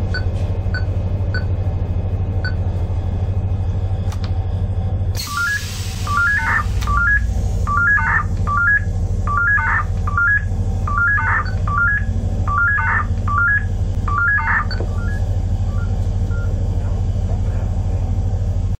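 Koliber GSM-R/VHF train cab radio sounding the radiostop emergency-stop alarm during a system test: after a burst of hiss, groups of short beeps each climb in pitch, repeating about once a second for roughly ten seconds. A few single key beeps come first, and a steady low hum runs underneath.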